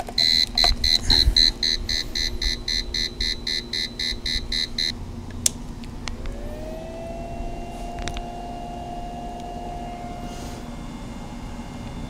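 Small Cobra power inverter's alarm beeping rapidly, about four beeps a second for nearly five seconds, as a mini dorm fridge is plugged into it: the inverter cannot start the fridge, whose compressor draws a start-up surge far beyond its capacity. A few seconds later a faint whine rises in pitch and holds steady for about four seconds.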